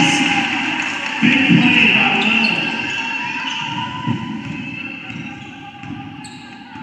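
Basketball crowd cheering in a gym, surging about a second in and then slowly dying down.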